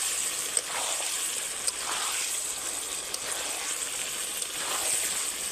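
Chicken pieces sizzling as they fry in oil and spiced mayonnaise masala in a kadai, with a spatula sweeping through them about once every second or so.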